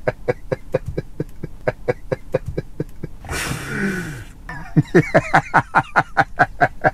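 A man laughing hard in rapid, even "ha-ha" pulses about six a second, breaking off a little past the middle for a long wheezing breath in, then laughing on.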